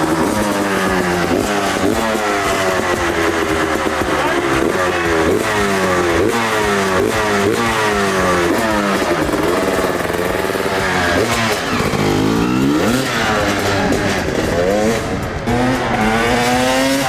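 2003 Honda CR250's single-cylinder two-stroke engine running and being revved, its pitch rising and falling over and over.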